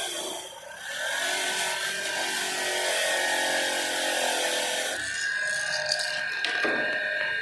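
Handheld electric grinder running with a steady whine while it grinds against a metal part. The grinding hiss drops away about five seconds in, leaving the motor whine.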